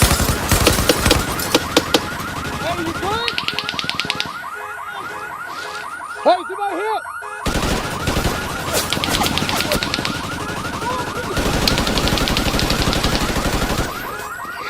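Combat sound-effect ambience: a rapid warbling electronic alarm repeats throughout, while several bursts of automatic gunfire come and go, densest in the first two seconds and again near the end.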